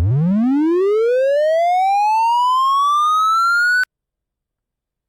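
Synthesized tone from the Sound of Sorting algorithm visualiser, one smooth rising glide from a very low pitch up to a high one over about four seconds, cutting off suddenly. This is the final check pass sweeping through the now-sorted array, so the pitch climbs steadily.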